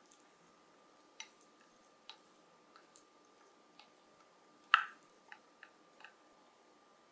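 Chopsticks clicking against a glass bowl while stirring raw chicken gizzards in seasoning: scattered light taps, with one much louder knock about two-thirds of the way through.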